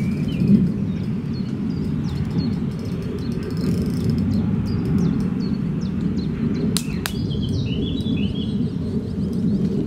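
Steady low rumble of wind on the microphone, with a few short bird chirps near the end and a sharp click about seven seconds in.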